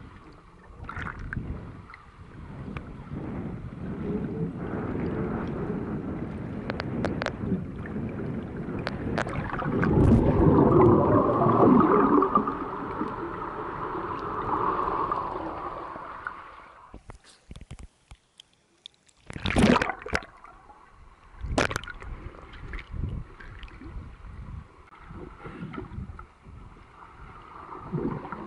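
Water churned by a swimmer's strokes and kicks, heard muffled through an underwater camera: a rushing, gurgling noise that swells to its loudest about a third of the way in, drops to near silence for a couple of seconds, then comes back with a few sharp knocks and splashes.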